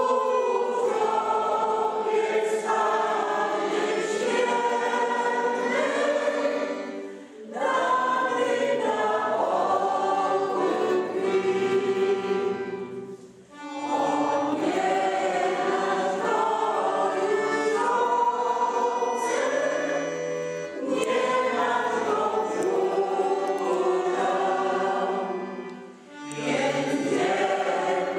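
A choir singing, phrase after phrase, with three brief breaks between phrases.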